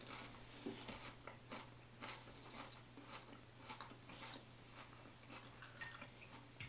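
Quiet chewing of a mouthful of lettuce salad: soft, irregular crunches, with a couple of sharper clicks near the end.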